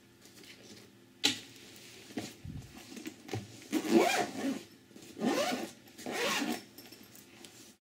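Zipper of a padded fabric equipment case pulled shut in three rasping strokes, after a single sharp knock about a second in as gear is set into the case.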